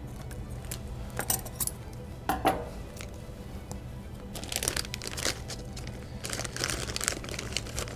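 Scissors snipping through a clear plastic bag, a few sharp snips in the first couple of seconds, then the plastic bag crinkling as it is handled, from about halfway in.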